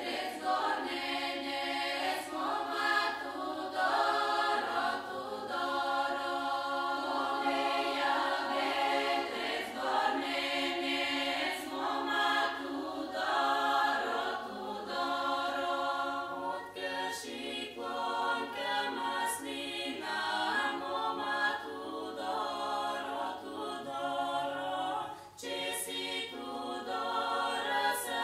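A choir singing a cappella, several voices holding long notes together in layered chords that shift every second or so.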